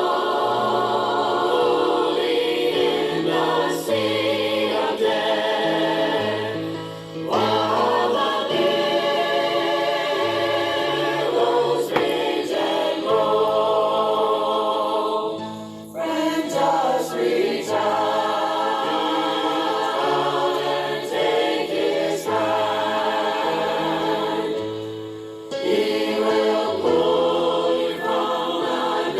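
A group of voices singing a gospel song, in phrases with short breaks about every nine seconds.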